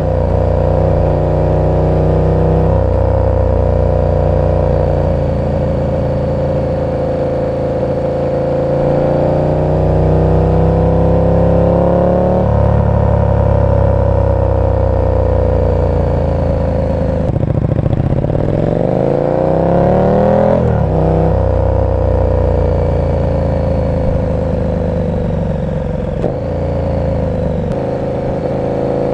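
KTM 1290 Super Duke R's V-twin running through an aftermarket exhaust, ridden at low, fairly steady revs. A little past halfway the revs fall, then climb for a few seconds and drop back abruptly.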